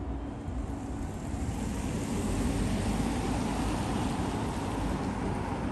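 Wind on the microphone at the water's edge: a low, uneven rumble under a steady hiss that swells about a second and a half in.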